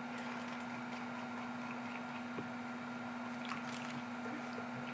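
A steady low hum over a faint hiss, with a soft click or two about three and a half seconds in.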